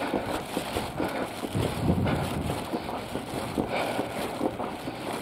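Street noise: a car engine running on the road, with a steady rustle and small irregular knocks.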